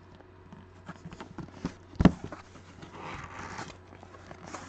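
Cardboard shipping box being opened by hand: a sharp knock about two seconds in, then a short stretch of cardboard flaps scraping and rustling, with small clicks and taps throughout.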